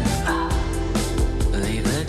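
Background music: a pop song with a steady beat and a sung vocal line.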